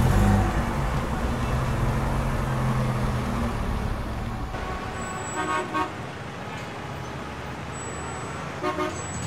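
Vehicle engine sound effect running steadily as the animated ambulance pulls away, fading out over the first four seconds or so. Then quieter city traffic with short car-horn toots, one about five seconds in and another near the end.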